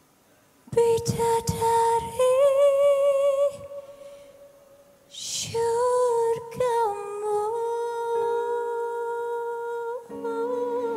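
A woman's voice vocalising without words, unaccompanied: two phrases of long held notes with vibrato, separated by a short pause. Instrumental accompaniment comes in near the end.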